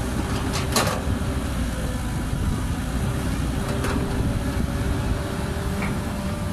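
Caterpillar 312B excavator's diesel engine running steadily under load as it digs and curls a bucketful of earth out of a pit, with a faint whining tone. A few short knocks sound in the first second and again about four seconds in.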